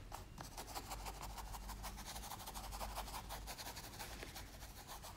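Paintbrush bristles scratching over a stretched canvas as acrylic paint is brushed on: faint, quick, repeated strokes.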